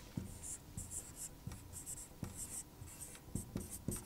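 Marker writing on a whiteboard: a string of short, faint, high-pitched squeaks and scrapes, one for each stroke of the letters, with light taps of the tip against the board.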